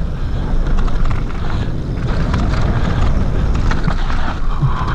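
Mountain bike riding down a steep, rough dirt trail: wind rushing over the action camera's microphone, with the tyres and bike rattling in many quick clicks and knocks over the bumps.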